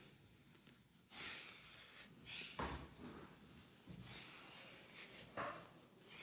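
Hands rubbing and sliding over oiled skin during a leg massage: faint swishing rubs, with two short, louder strokes that drop in pitch, one about two and a half seconds in and one near the end.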